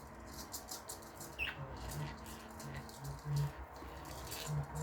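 Pet budgies scratching and rustling in their cage, with one short falling chirp about a second and a half in.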